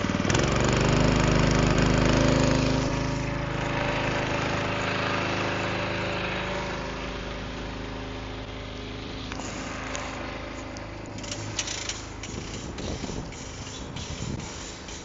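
The sprayer's Honda engine driving the banjo pump is throttled up about half a second in to bring the pump to 40 psi, then runs steadily and eases off slightly. Short clicks and knocks come near the end.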